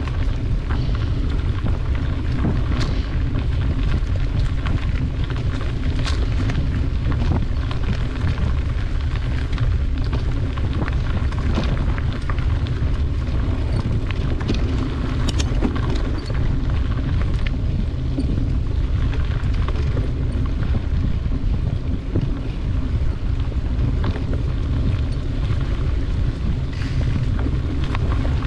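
Riding noise of a bicycle on a dirt trail, heard from a camera moving with the bike: a steady low rumble of wind on the microphone and tyres rolling over the ground, with scattered short clicks and rattles from bumps along the trail.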